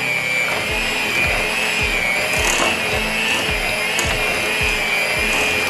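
Electric hand mixer running steadily, its beaters whipping thick buttercream frosting in a glass bowl: a continuous high motor whine with a soft regular thumping about three times a second.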